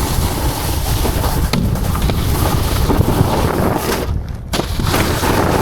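Heavy wind buffeting the microphone of a helmet-mounted action camera while riding: a loud, steady low rumble with hiss above it, which briefly thins out about four seconds in.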